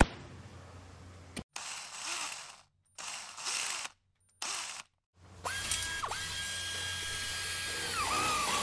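Short bursts of clicking and rattling from the plastic chassis and tools being handled, separated by brief silences. About halfway in, a steady high electric whine starts from the mini RC crawler's newly installed steering servo. It breaks off briefly soon after starting and drops in pitch near the end.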